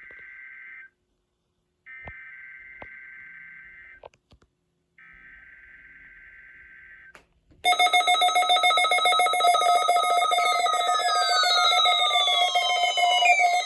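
NOAA Weather Radio's SAME header signalling a Required Weekly Test: three short bursts of a buzzing data tone, with about a second of silence between them. About seven and a half seconds in, a much louder, steady weather radio warning alarm tone begins.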